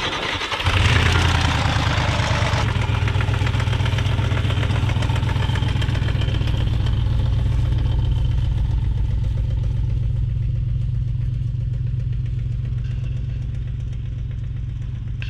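An Audi B6's engine catching under a second in and idling with a steady, even low pulse. It is noisier for the first couple of seconds, then settles and eases off slightly toward the end.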